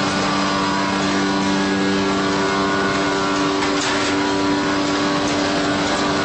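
Facial tissue converting machinery (log saw and box packing line) running steadily, a constant mechanical hum made of several steady tones over a dense noise, with a few faint clicks about four seconds in.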